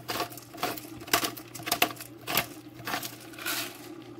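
Hand-held pepper grinder being twisted over the pot, grinding peppercorns with a run of short crunching clicks, about two a second.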